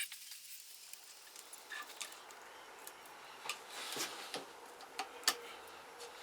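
Light, scattered clicks and taps, a few sharp ones in the second half, from small metal engine parts and tools being handled during piston and cylinder fitting.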